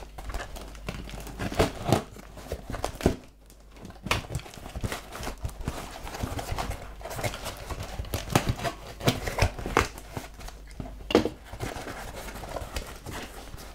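A cardboard parcel box being opened by hand: cardboard scraping and rustling and tape tearing as the flaps are pulled back, with irregular knocks and handling sounds.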